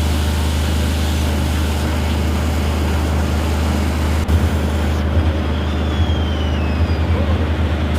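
Steam engines running with a steady low hum and hiss, and a single sharp click about four seconds in.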